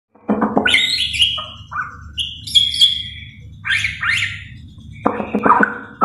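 White-rumped shama singing a varied, energetic song. Clear whistled notes and quick up-and-down slurs mix with harsher, lower rattling notes at the start and again near the end.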